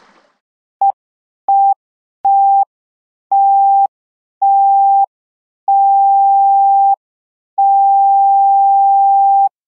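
Seven electronic beeps at one steady pitch, with silence between them, each beep longer than the one before: the first a short blip about a second in, the last held for about two seconds.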